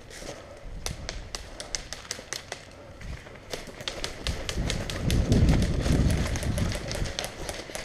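Airsoft guns firing: many rapid, uneven clicks that come thickest in the second half. A low rumble rises over them about four and a half seconds in and fades near the end.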